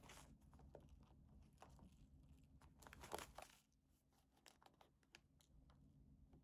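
Paper or plastic packaging being handled, crinkling and rustling in short spells, the longest about three seconds in, followed by a few small clicks.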